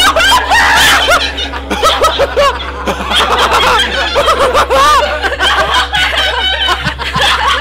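Several people laughing at once, overlapping snickers and chuckles.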